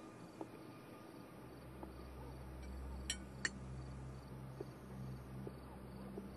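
Quiet room ambience: a low steady hum comes in about a second and a half in, with a few faint light clicks and two sharper clicks close together near the middle.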